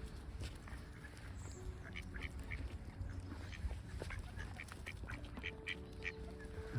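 Ducks quacking, a scattering of short calls, over the low rumble of strong wind on the microphone.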